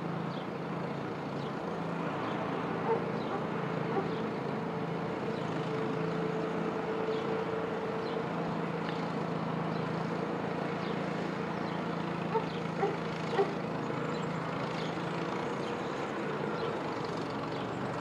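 Small farm tractor's engine running steadily as it pulls a mounted plough through soil on a slope, with a few sharp knocks about three seconds in and again around twelve to thirteen seconds.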